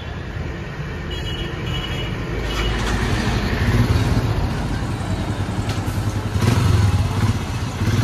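Royal Enfield Himalayan's single-cylinder engine running and being revved, getting louder from about a third of the way in, with the loudest revs near the end.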